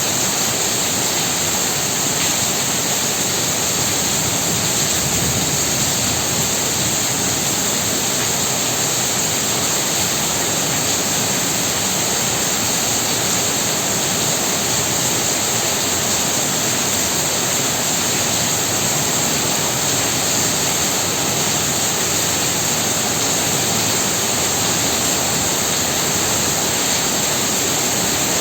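Heavy rain falling in a steady, even hiss that does not let up.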